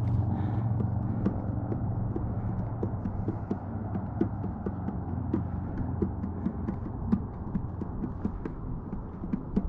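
Footsteps on a rocky, muddy trail: short irregular crunches and knocks, about three a second, over a low steady rumble.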